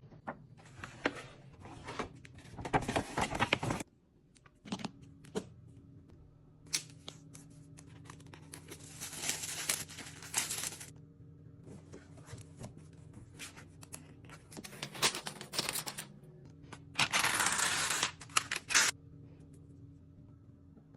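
iPad Air packaging being opened by hand: irregular rustling and tearing of wrap and paper, with scattered clicks and taps. The longest and loudest rustling comes in three stretches, the last near the end.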